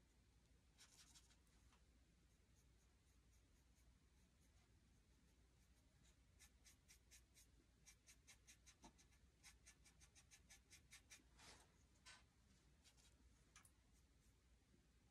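Faint strokes of a small paintbrush dabbing on a painted board: quick runs of soft ticks, several a second, busiest in the middle stretch.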